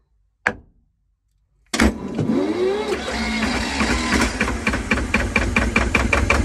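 A single sharp knock about half a second in, as a hammer strikes the starter motor, then a second or so later a 1969 twin-cylinder Lister marine diesel starts and settles into a steady, rapid running beat. The starter motor had been sticking and is freed for now by the hammer blow.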